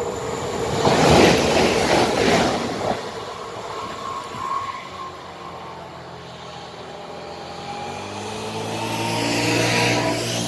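A FAS/TUA ETR.S03 electric regional train passes close by, with a loud rush of wheels on rail that peaks about a second or two in and then dies away. In the second half a second electric train approaches, its motor hum and whine growing louder toward the end.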